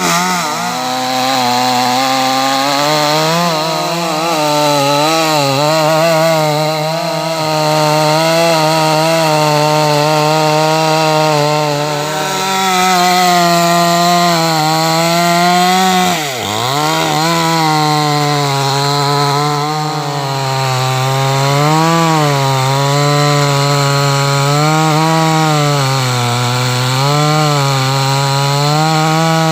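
Gasoline chainsaw running at high revs while cutting through a sissoo (Indian rosewood) trunk, its pitch wavering as the chain bites into the wood and eases off. About halfway through, the engine pitch drops sharply and then climbs straight back.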